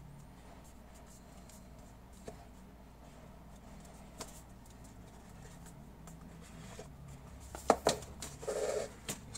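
Cardboard phone box handled by hand: a few faint taps, then two sharp knocks near the end and a short scrape as the inner box slides out of its cardboard sleeve.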